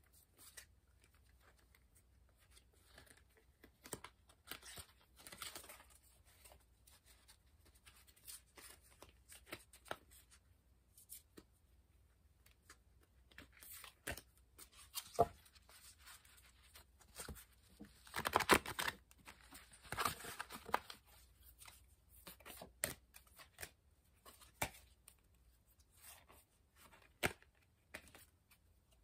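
Oracle cards being shuffled and handled by hand: faint, irregular flicks and rustles of card stock, with a louder rustling flurry about two-thirds of the way through.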